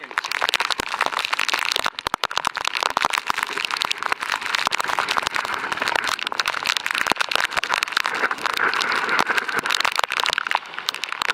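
Heavy downpour pelting wet pavement in a wind gust: a dense, uneven hiss with many small pops of raindrops.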